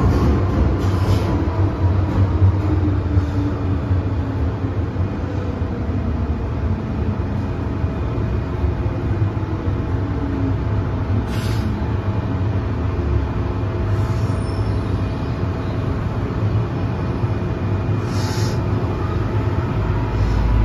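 Interior of a first-generation MTR M-train running at speed: steady rumble of wheels on track with the whine of its traction motors, a few tones slowly shifting in pitch. Near the end the low rumble swells as the train slows.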